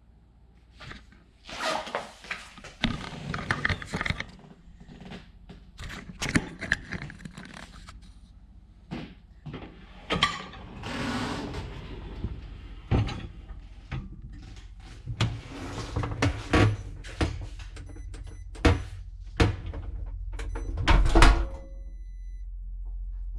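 A dishwasher's door and racks being handled: an irregular run of knocks, clatters and thunks over a steady low hum.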